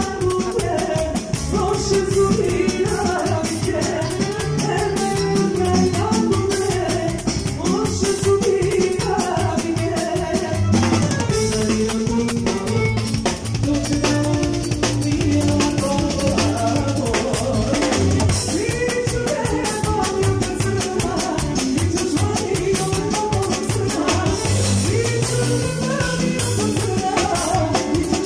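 Live band music led by a drum kit, with busy cymbal and snare hits over the kick drum, under a stepping bass line and a melody.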